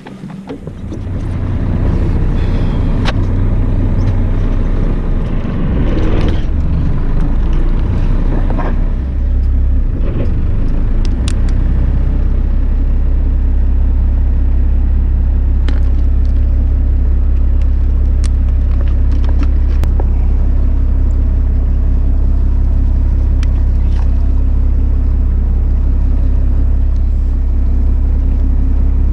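Fishing boat's engine coming up to speed in the first couple of seconds, then running at a steady low drone. A few sharp knocks sound over it.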